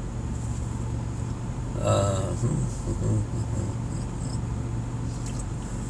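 A pause in a van cabin: a steady low hum under a thin, steady, high-pitched whine, with a brief murmured sound about two seconds in.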